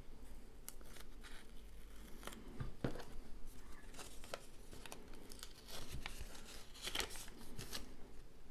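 Paper and washi tape being handled: scattered short rustles and crinkles as the tape is peeled off and a paper drawing is lifted away from a piece of milk carton.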